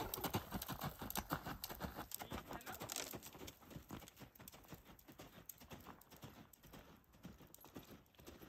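Hoofbeats of a horse cantering on a sand-and-gravel arena surface, a quick run of soft thuds that grow fainter after about three seconds as the horse moves away.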